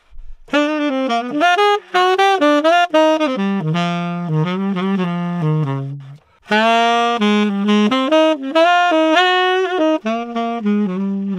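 Tenor saxophone playing two melodic phrases. The first, on a BetterSax Burnin' 7* hard-rubber mouthpiece, moves from higher notes down into the low register. After a brief break about six seconds in, a second phrase follows on a gold-plated Theo Wanne Ambika IV 7* metal mouthpiece.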